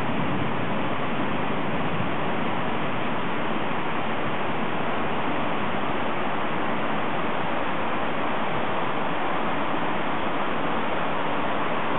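Thunderstorm downpour: heavy rain falling in an even, unbroken hiss.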